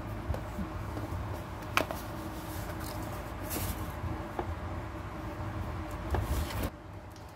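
Handling noise as a cat is held down on cardboard: scuffing and rustling, with one sharp knock a couple of seconds in and a few fainter ones later.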